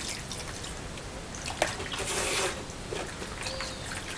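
Hands squeezing and kneading thick, clotting guar gum and kerosene gel in a plastic bowl, with small wet squelches and drips. A brief louder splash comes about two seconds in.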